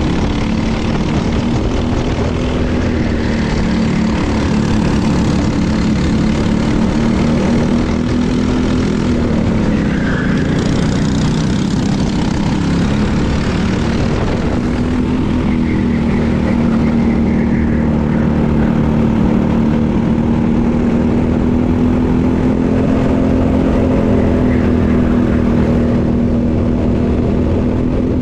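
Briggs & Stratton LO206 single-cylinder four-stroke kart engine running hard at race speed. Its pitch drops about nine seconds in as the kart slows for a turn, then climbs back and holds steady.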